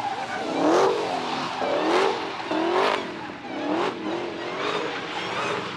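Car engine revving hard in repeated rising surges, about one a second, four in all, as the car spins donuts, with tyres squealing at each surge.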